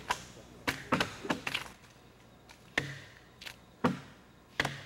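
Axes chopping into a large wooden log being hollowed out into a dugout canoe: about eight sharp blows at an uneven pace, with a short pause about two seconds in.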